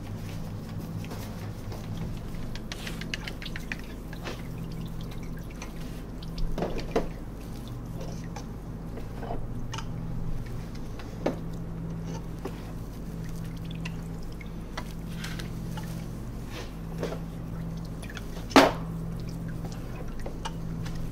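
Soft goat curd being ladled by hand into cheese-draining moulds: wet scooping, pouring and dripping of whey. A few sharp knocks of the metal ladles against the plastic moulds and buckets, the loudest near the end, over a steady low machine hum.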